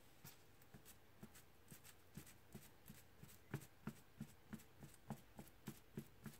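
Fork pricking the raw shortcrust pastry base in a tart tin: a run of soft taps, sparse at first, then about three a second and louder from about two seconds in.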